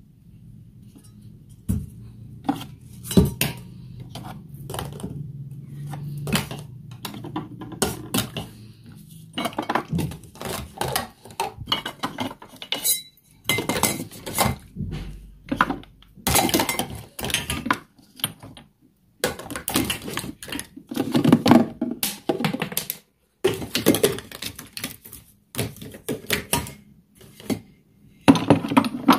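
Dishes and cutlery clinking and clattering in irregular bursts as kitchenware is handled, with a low steady hum under the first several seconds.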